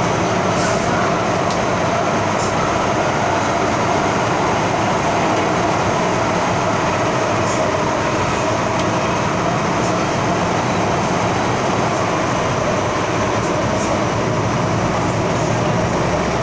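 Interior running noise of an MTR Tsuen Wan Line M-Train, a Metro-Cammell electric multiple unit, travelling through a tunnel. It is a loud, steady rush and rumble of wheels and air with a few faint light ticks.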